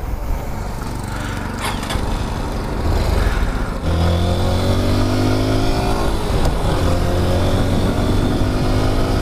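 Motorcycle engine accelerating: it grows louder about three to four seconds in, then its pitch rises steadily over a constant rush of noise.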